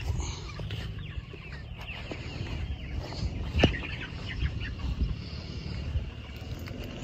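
A flock of broiler chickens clucking, over a low rumble, with one sharp knock about three and a half seconds in.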